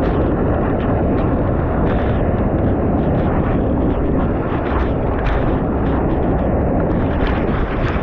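Rushing whitewater and wind buffeting the microphone of a camera mounted on a surfboard riding a breaking wave: a loud, steady roar with sharp splashes of spray.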